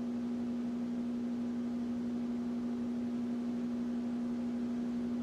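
A steady electrical-sounding hum on one constant tone with faint overtones, over a low hiss.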